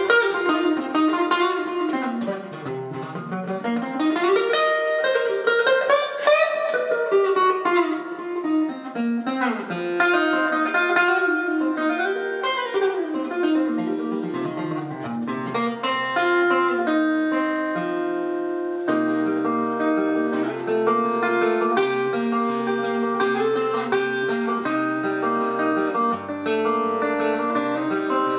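Acoustic guitar played solo in a slow blues instrumental passage with no singing. For roughly the first ten seconds the notes glide up and down in pitch; after that it settles into picked melody notes over steady low bass notes.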